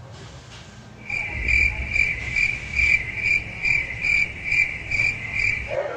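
Insect chirping: a loud, high, pulsing trill at about two and a half pulses a second. It starts about a second in and stops just before the end.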